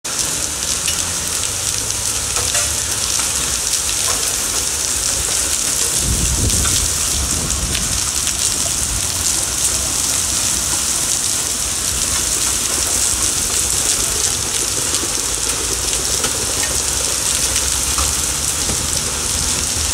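Hail and rain falling on stone paving: a dense, steady hiss with scattered sharp ticks as single hailstones strike. A low rumble joins about six seconds in.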